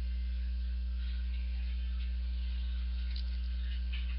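Steady low electrical mains hum on the recording, with a few faint light clicks and rustles of a butterfly knife being handled, about a second in, a little after three seconds and near the end.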